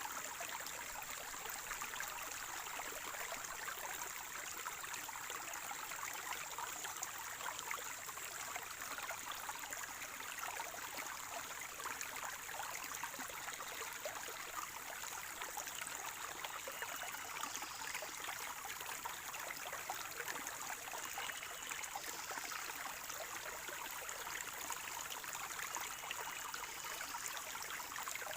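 Spring water running in a small stream, gurgling and trickling steadily with many fine splashes.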